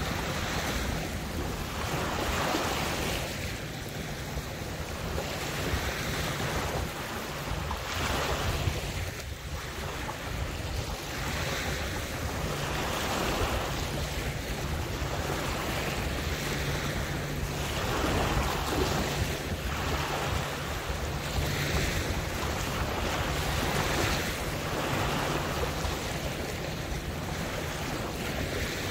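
Small waves lapping and splashing, surging every few seconds, with wind buffeting the microphone.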